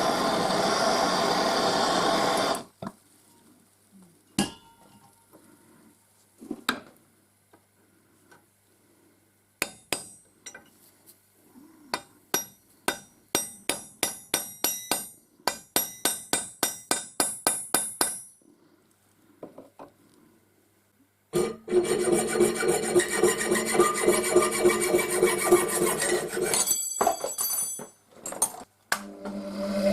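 A machine tool running on brass stops after a few seconds. Scattered clicks follow, then a run of short, sharp scraping strokes at about two a second. The machine then runs again for about five seconds and stops shortly before the end.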